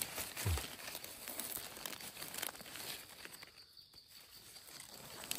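Rustling and crinkling of dry leaves and forest debris being pushed aside and handled by hand while a mushroom is uncovered and picked, a scatter of small irregular crackles.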